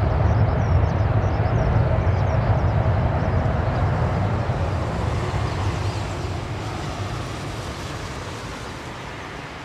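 ANA Boeing 787-8's Rolls-Royce Trent 1000 turbofans running on the runway: a loud, deep jet rumble that gradually fades away over the last few seconds.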